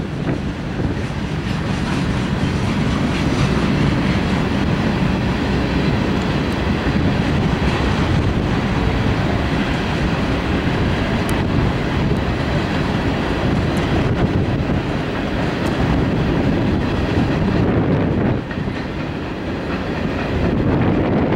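Freight cars of a CSX manifest train, mostly tank cars, rolling past on steel rails: a steady, loud rumble of wheels with occasional sharp clicks from the rail joints.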